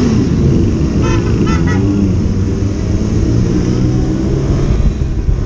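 Motorcycle engine running at road speed with road noise, and a few short horn toots about a second in.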